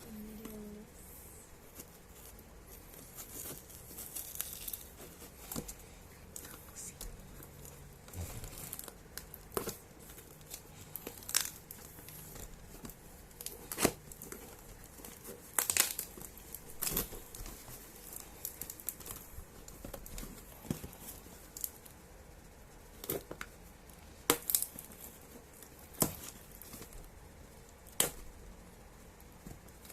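Packaging being torn open and crinkled by hand: irregular sharp crackles and tearing snaps, scattered every second or two.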